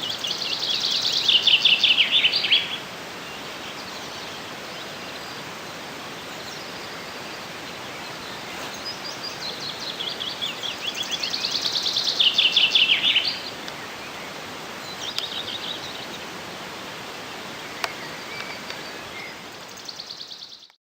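Songbird singing outdoors: two long songs of fast repeated high notes that grow louder towards their end, one at the start and one about halfway through, then a few shorter, fainter phrases, over a steady rural background hiss. The recording cuts off just before the end.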